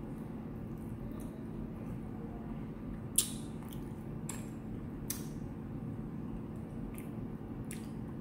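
Close-up eating sounds of fried chicken wings being chewed and pulled apart by hand: scattered wet smacks and sharp clicks, the loudest about three seconds in, over a steady low hum.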